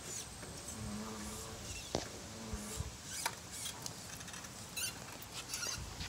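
Jazzy powerchair's drive motors giving two short, steady low hums about a second and a half apart as the empty chair turns under remote control. Scattered light clicks and thin squeaks follow.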